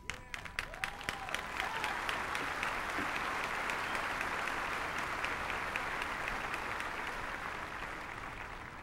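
Large stadium crowd applauding: scattered claps in the first two seconds build into steady, dense applause that holds evenly.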